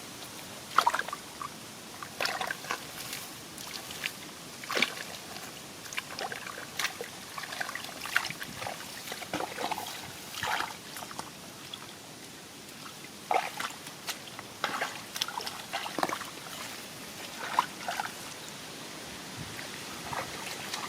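Shallow water splashing and sloshing in irregular short bursts, as someone wades and gropes by hand through a flooded rice field.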